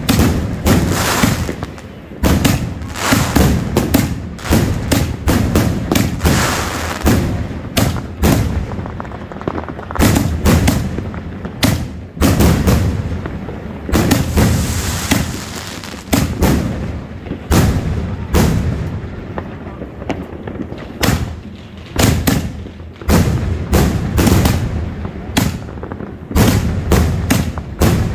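Multi-shot consumer firework cake firing a long, rapid barrage of launches and aerial bangs, several shots a second.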